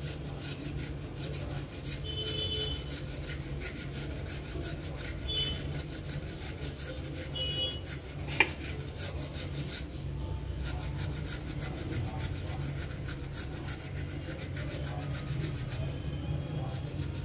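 Kitchen knife scraping the ridged skin off a drumstick (moringa pod), in quick rasping strokes, several a second. A single sharp click a little past the middle.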